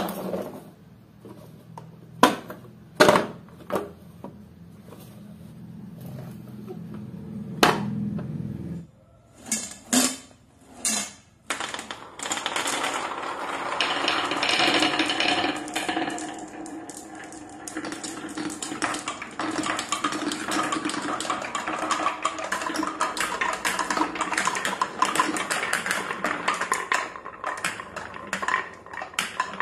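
A plastic toy dump truck pushed along a hard floor, its wheels giving a low rolling rumble with a few sharp clicks; it stops about nine seconds in. After a few knocks, many marbles roll and clatter down plastic and wooden marble-run tracks in a dense, continuous rattle.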